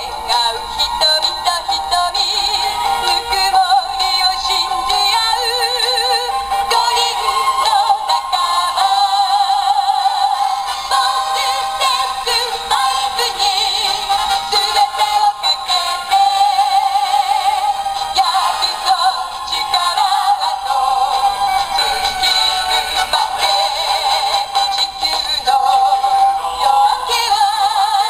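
A song with singing played through the small built-in speaker of a Bandai DX Voltes V Camp Big Falcon base toy, thin and without bass.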